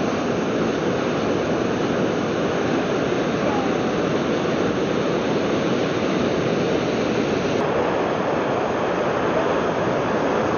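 Surf breaking and washing up a sandy beach: a steady rushing noise. About three-quarters of the way through, its highest hiss suddenly drops away.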